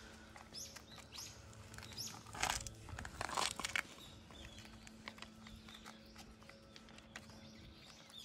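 Stray cats eating: faint, scattered crunching and crinkling, with a few short high chirps.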